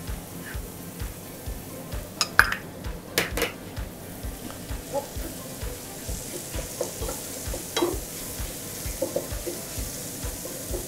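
Minced onion, shiitake, garlic and ginger sizzling in oil in a frying pan while being stirred with a wooden spatula, at the stage where curry powder and garam masala are being fried to release their aroma. A few sharp knocks of the spatula against the pan, loudest about two to three seconds in.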